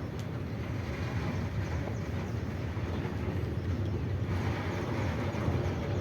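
Freight train wagons rolling past on the track, a steady low rumble.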